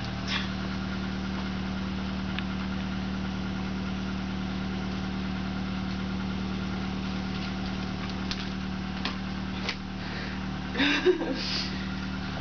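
Steady low mechanical hum, engine-like, with a few faint clicks and a short louder burst of sound about eleven seconds in.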